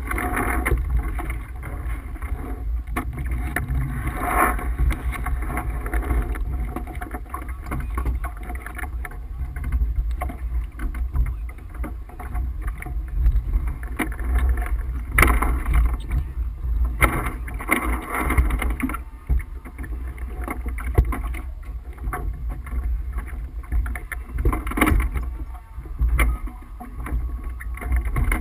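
Wind buffeting the microphone and water rushing past the hull of a Tripp 37 sailboat under sail, the rush swelling in surges a few times.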